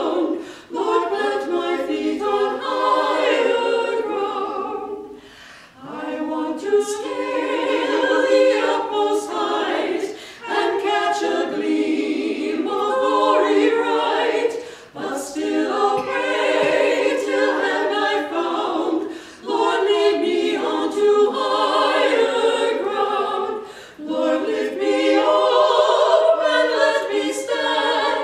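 Four women's voices singing a hymn a cappella in close harmony, in phrases of about four to five seconds with short breaks for breath between them.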